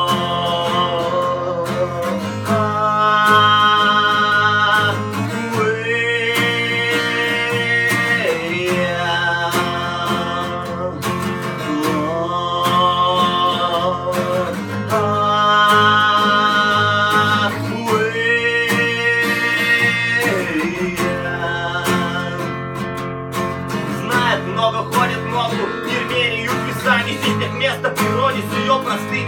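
Acoustic guitar strummed and picked steadily, with a man's voice singing long held notes over it in repeated phrases; near the end the singing stops and the guitar plays on alone.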